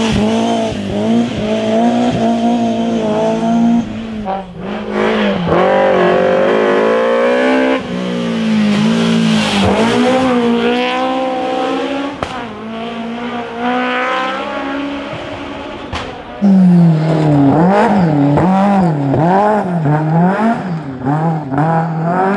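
BMW E30 M3 rally cars' S14 four-cylinder engines at full throttle in several short passes. The engine pitch climbs and drops through gear changes, with quick repeated throttle blips near the end.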